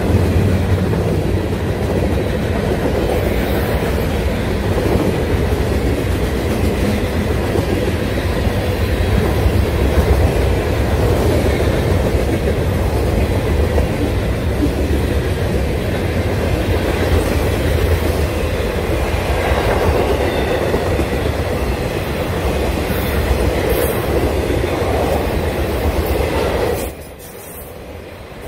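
Freight cars, covered hoppers and boxcars, of a long freight train rolling past close by: a steady, loud rumble of steel wheels on the rails. The sound dips briefly near the end.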